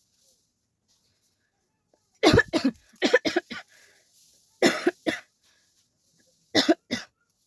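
A person coughing deliberately as a challenge, in four short fits of two or three sharp coughs each, starting about two seconds in.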